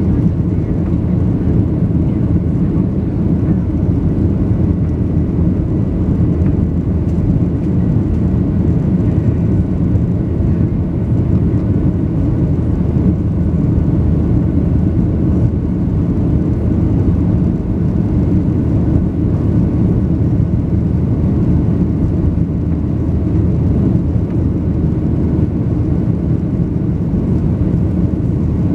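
Steady low rumble of a Boeing 737-700's CFM56 jet engines and rushing air, heard from inside the cabin over the wing, with a faint thin whine on top.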